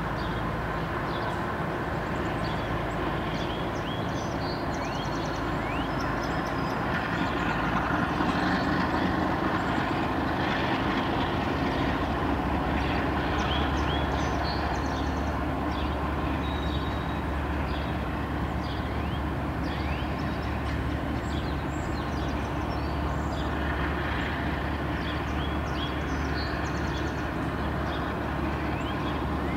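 Diesel freight locomotives running steadily as a long freight train moves slowly along the track. A continuous low engine rumble and drone grows a little fuller about halfway through, with short high chirps scattered over it.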